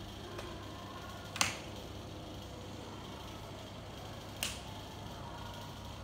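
Two sharp clicks about three seconds apart, over a steady low hum.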